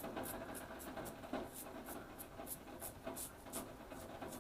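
Rockwell 6s safety razor scraping through lathered stubble in short, quick strokes, about three or four a second, over the steady hiss of heavy rain.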